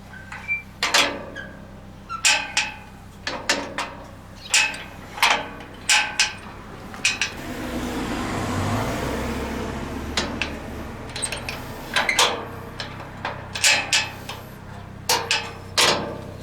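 Repeated sharp metallic clacks and clicks of a repaired metal gate handle and latch being worked. A rushing swell rises and fades in the middle.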